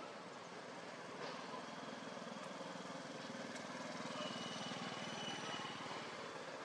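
An engine running steadily, with an even pulsing beat, a little louder from about four seconds in.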